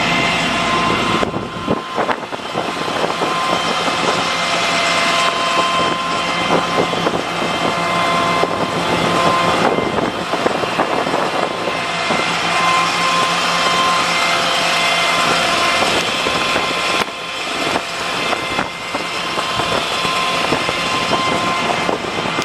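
5.9-litre Cummins diesel of a 2005 Ford F650 running at raised high idle, driving the PTO hydraulic pump as the rollback flatbed moves, with a steady whine over the engine noise.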